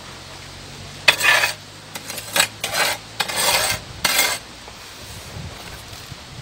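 Loose potting soil being scraped together across a tabletop with hands and a metal garden trowel, in about five rough scraping strokes between one and four and a half seconds in.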